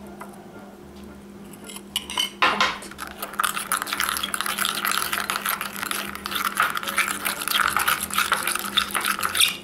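A utensil stirring glue-and-glitter slime in a container as the activator is mixed in, scraping and clinking rapidly against the sides. It starts with a few light taps, and the stirring begins about two and a half seconds in.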